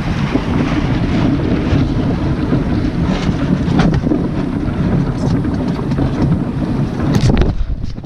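Wind buffeting the microphone, with water splashing and rushing along the hull of a small sailboat under way.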